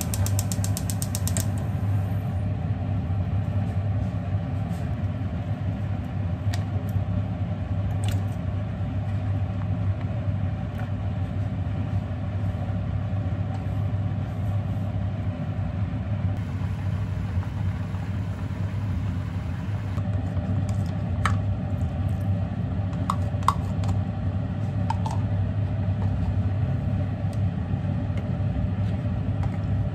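A steady low rumble with a hum, with a few light clicks and taps from cooking, about eight seconds in and again in a cluster past the middle.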